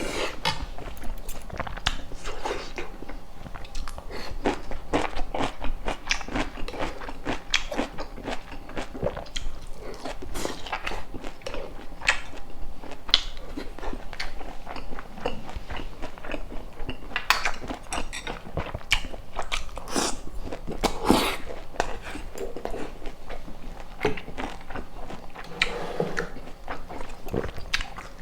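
Close-miked eating: biting and chewing food with irregular crisp crunches and wet mouth clicks.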